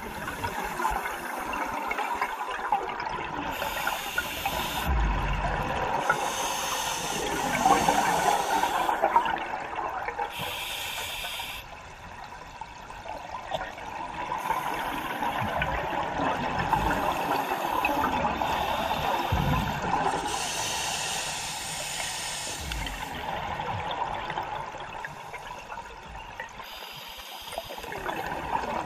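Scuba diver breathing through a regulator underwater: short hissing inhalations alternating with gurgling, bubbling exhalations, several breaths in a row.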